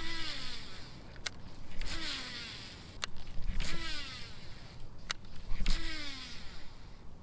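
Baitcasting reel: four short whirs that fall in pitch as the spool spins and slows while line pays out, with sharp clicks between them.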